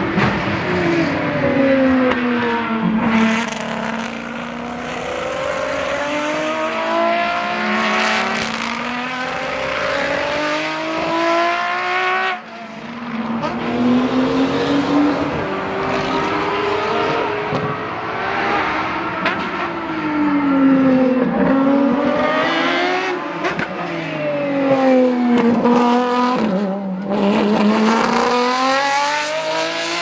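Lamborghini Essenza SCV12's naturally aspirated 6.5-litre V12 running hard on track. The pitch drops through quick downshifts under braking, then climbs again as the car accelerates away, several times over, with the sound changing abruptly about twelve seconds in.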